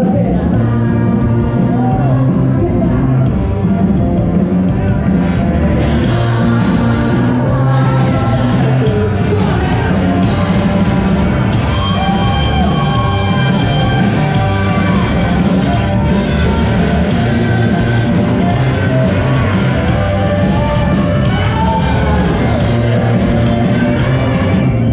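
Rock music: a full band playing steadily with a lead voice singing over it.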